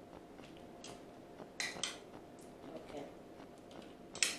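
A spatula scraping against a bowl as sweet corn is spooned out, in a few short scrapes, the sharpest near the end.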